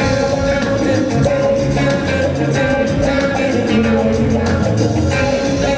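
Rock band playing live, with electric guitar, bass, drums and keyboard in a steady beat.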